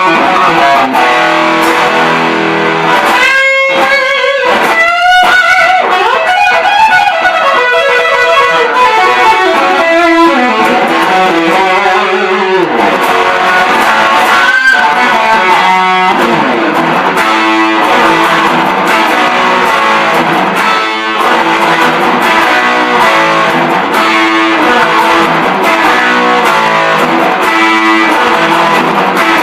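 Distorted electric guitar: a 1988 Ibanez JEM77FP played through the drive channel of a 1987 Mesa/Boogie Caliber Plus amp. The lead lines slide and bend in pitch in the first half, then settle into a riff repeating about once a second.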